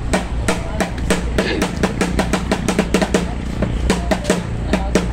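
Fast lion-dance style drumming, a quick even run of strokes about five a second, beating time for a monkey dance.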